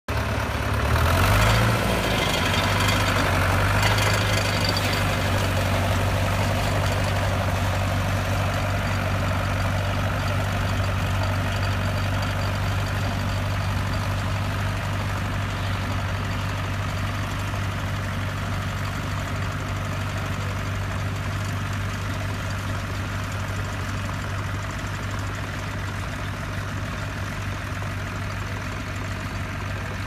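Fordson Power Major tractor's four-cylinder engine running steadily as it pulls a mounted plough through the soil. It is loudest in the first few seconds, then fades gradually as the tractor draws away.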